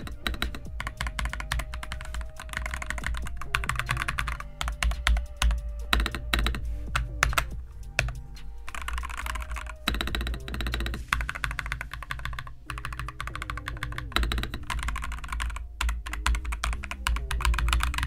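Fast, continuous typing on a CoolKiller CK75 gasket-mounted mechanical keyboard with pre-lubed linear switches: a dense run of keystrokes. Background music with a steady bass line plays underneath.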